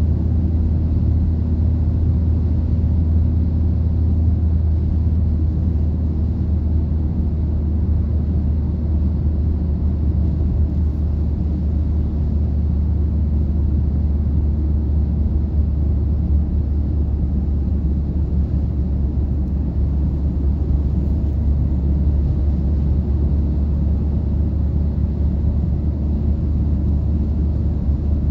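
Steady low rumble of a car driving at highway speed, heard from inside the cabin: tyre, road and engine noise.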